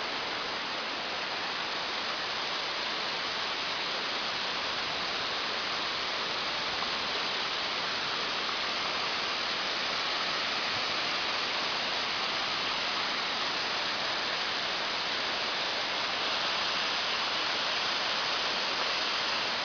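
Waterfall's falling water, a steady, even rush that holds constant throughout.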